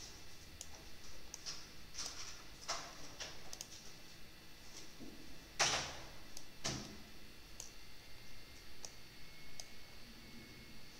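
Scattered faint clicks and taps, with two louder short swishes a little past halfway.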